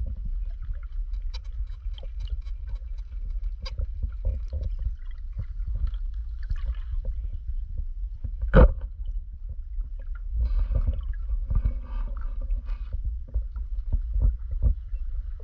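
Muffled low rumble of seawater moving around an underwater camera housing, with scattered small clicks and ticks. There is one loud knock about eight and a half seconds in.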